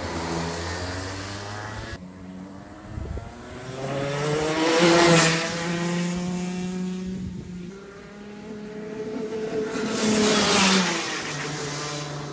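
Rotax Max racing kart's two-stroke engine running at high revs as karts pass close by twice, loudest about five seconds in and again near the ten-second mark, the pitch bending as each goes past.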